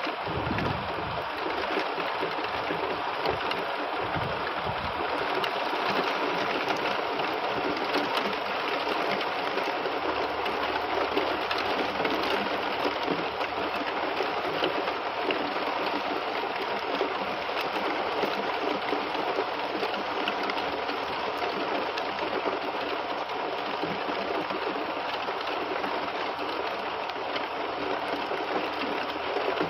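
Heavy rain falling steadily on conifer trees: a dense, even hiss of drops. There are a few low rumbles in the first few seconds.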